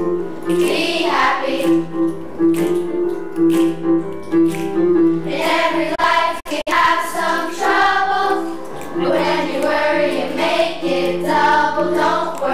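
Children's choir singing with instrumental accompaniment. The accompaniment carries the first half with the voices light, then the choir comes in strongly about halfway through, just after a split-second break in the sound.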